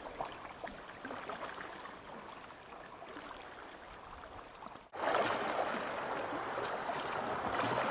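Water moving around kayaks on a river: faint lapping and paddle drips at first, then after an abrupt break about five seconds in, a louder steady rush of water.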